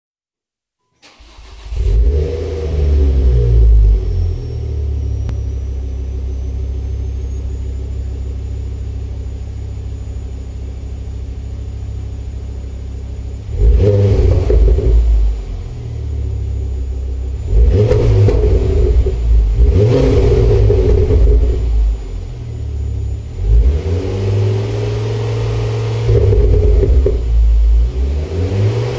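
Ford Focus ST Mk2's turbocharged 2.5-litre five-cylinder engine, breathing through a Mongoose Section 59 aftermarket exhaust, starts about a second in and flares, then settles to a steady idle. From about halfway through, it is revved in place about six times, some blips short and some held for over a second, each dropping back to idle.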